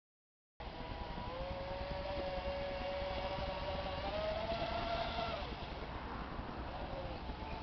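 Radio-controlled speedboat's motor, a steady whine from across the water that rises a little in pitch and then fades away as the boat runs off. Wind rumbles on the microphone throughout.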